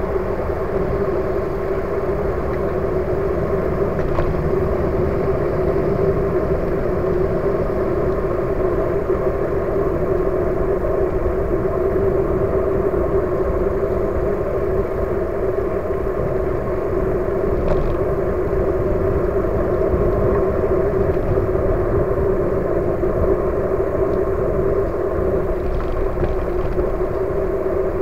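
Steady rumble of wind and road noise on a camera mounted on a moving e-bike, with a constant low hum underneath.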